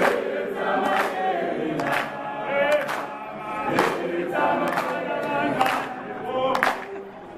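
A crowd of people singing together, with hand claps keeping time about once a second.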